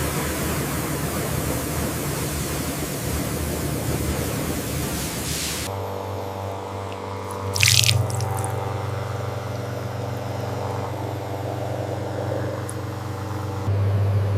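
Water spraying or rushing for about six seconds, then a sudden switch to a steady machine hum with a short loud hiss about two seconds into it. The hum swells near the end and cuts off.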